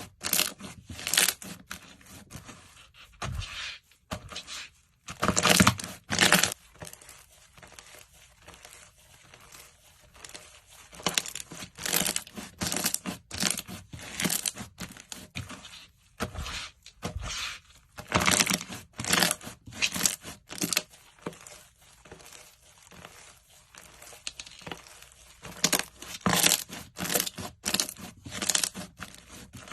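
Slime being squeezed, pressed and pulled by hand, giving irregular bursts of wet crackling and popping.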